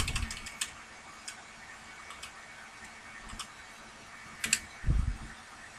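Scattered computer mouse clicks: a quick cluster at the start, then single clicks every second or so, with a soft low thump near the end.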